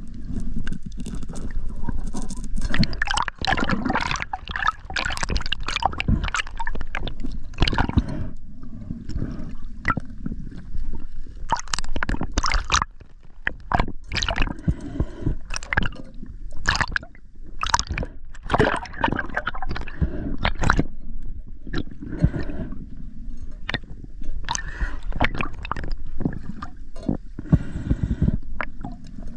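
Water gurgling and sloshing over an underwater camera as the diver moves, in irregular surges broken by short clicks and crackles. Heard from underwater.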